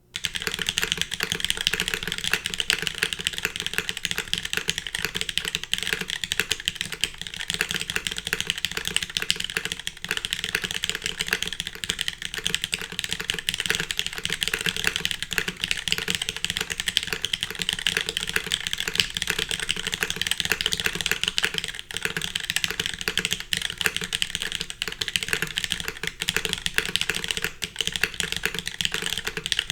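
Continuous typing on a custom mechanical keyboard: polished, lubed and filmed Cherry MX Black linear switches in a full aluminium plate, with DCS keycaps, giving a steady run of key clacks.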